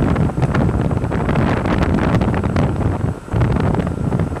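Wind buffeting the microphone on the open sea, loud and gusting, easing briefly about three seconds in.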